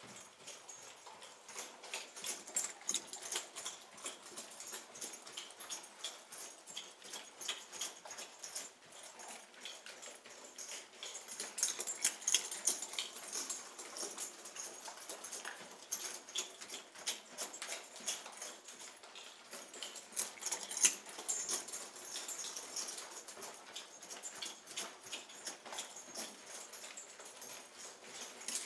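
A horse's hooves on sand footing as it moves around a round pen: a continuous, irregular run of soft hits and scuffs.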